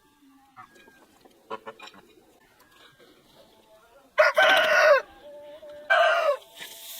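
Two loud animal calls, the first about four seconds in and lasting nearly a second, the second shorter, each dropping in pitch at the end, over faint scattered clicks and chirps.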